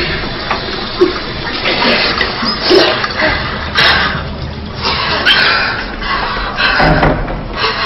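A steady rush of water, like a toilet flushing, with a few short, sharper noises over it.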